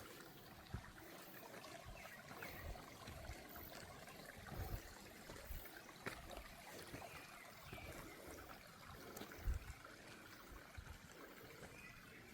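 A small stream trickling faintly and steadily, with a few short low thumps, the loudest about nine and a half seconds in.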